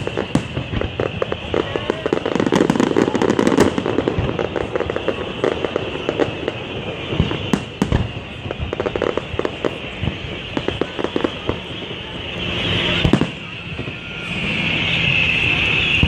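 Aerial fireworks shells bursting: a dense run of bangs and crackling, thickest about two to four seconds in, with scattered single bangs after that.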